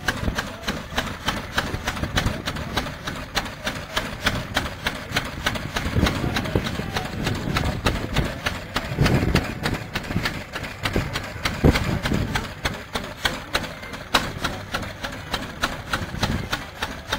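Vintage single-cylinder stationary engine with open flywheels running, a fast, even clatter of ticks with a heavier low thud now and then.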